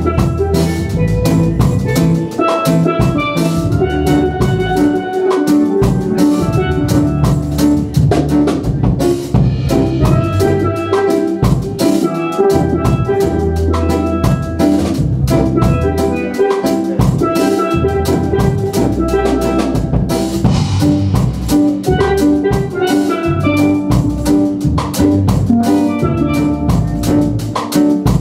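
Steel pan music: a pair of steel pans played with sticks, a quick run of ringing pitched notes, over a drum kit keeping a steady beat.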